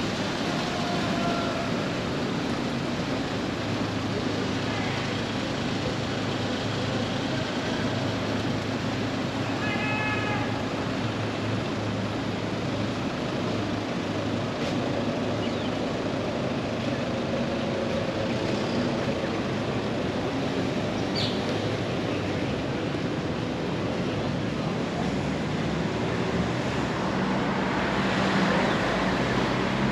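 City street ambience: a steady wash of traffic noise with a low hum. A short, high pitched call sounds about ten seconds in, and the traffic noise swells near the end as a vehicle comes close.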